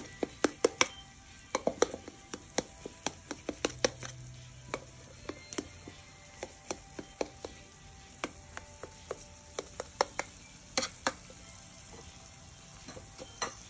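Kitchen knife cutting warm egg halwa in a round steel tray, the blade striking the metal bottom in sharp, irregular clicks and taps. They come thick and fast for the first few seconds, then more sparsely.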